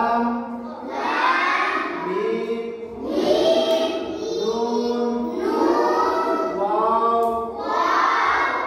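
A group of children reciting together in unison in a chanted sing-song, in a string of short phrases each a second or two long.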